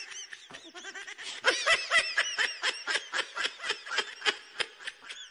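High-pitched laughter in quick, even pulses, about five a second, getting louder about a second and a half in.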